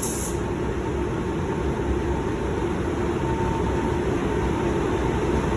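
Steady low mechanical hum with a faint steady tone, after a short hiss from the Iwata LPH 400 spray gun cuts off just after the start.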